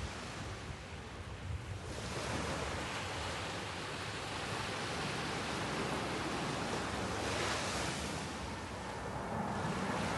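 Sea waves washing onto the shore, the surf swelling a couple of seconds in and again around seven seconds.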